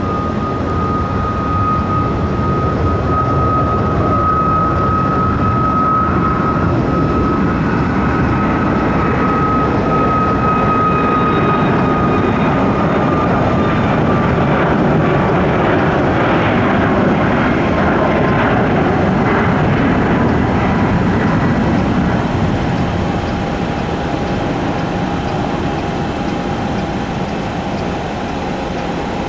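Boeing 737-8 MAX's CFM LEAP-1B turbofans at takeoff power: a steady high whine over a jet roar. The whine slides slightly lower partway through, and the roar is strongest about two-thirds of the way in before easing off as the jet moves away.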